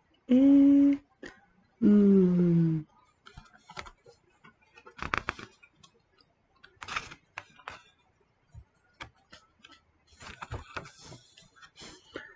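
A woman's voice humming two short held notes, the second falling, then light taps and rustles of fingers on the paper pages of a picture book. About ten seconds in, a page is lifted and turned with a papery rustle.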